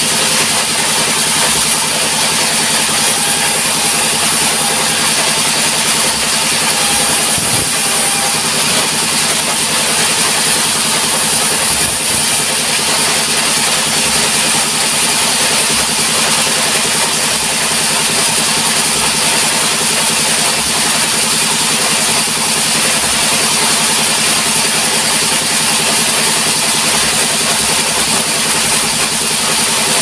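Sawmill's vertical band saw running steadily, its drive engine humming under a constant high hiss.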